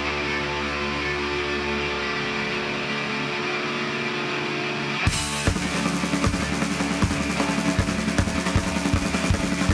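Hardcore band playing live: distorted electric guitars and bass hold a ringing chord with no drums, then about five seconds in the drums crash back in and the full band drives on with a steady beat.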